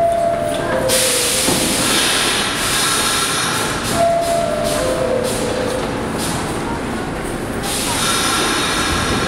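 R46 subway car's door-closing chime, a two-note falling ding-dong, sounds twice about four seconds apart. A loud hiss of air from the standing train runs between and after the chimes.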